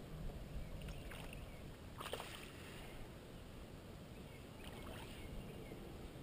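Water sloshing and a low wind rumble around a kayak, with a few short splashes, the clearest about two seconds in.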